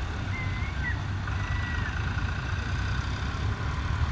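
Tractor engines idling with a steady low rumble, with a few brief high chirps over it.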